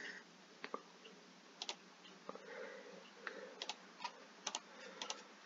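Faint, scattered clicks of a computer mouse, about ten, several in quick pairs, as a video player's settings menu is worked.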